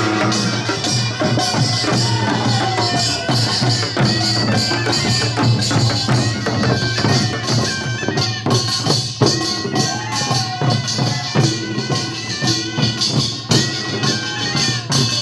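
Korean farmers' band music (nongak): percussion playing a dense, steady rhythm of rapid strikes with a bright metallic ring.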